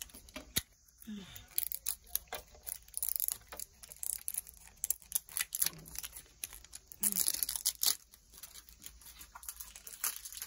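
Plastic toy packaging being torn open and crinkled, with many small clicks and taps of hard plastic toy pieces handled on a tabletop.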